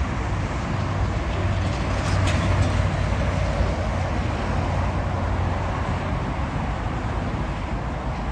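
Jet engines of a taxiing four-engine Boeing 747 at low taxi power: a steady low rumble with an even hiss over it.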